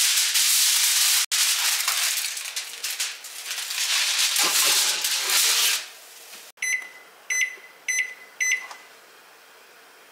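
Aluminium foil crinkling as a sheet is handled and pressed over a casserole dish. About two-thirds of the way in come four short electronic beeps from a microwave's keypad, about half a second apart, as a 30-minute timer is keyed in.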